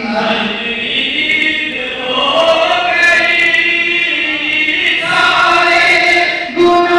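A large crowd of voices chanting together in unison, a devotional chant held on long sustained notes. The sound dips briefly just before the end, then resumes at full strength.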